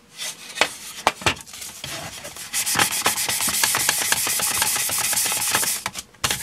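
Sandpaper rubbing by hand over the primed ABS plastic body of an RC car, in rapid short back-and-forth strokes. This is guide-coat sanding to show up dents and low spots. A few handling clicks come first, and the sanding stops suddenly near the end.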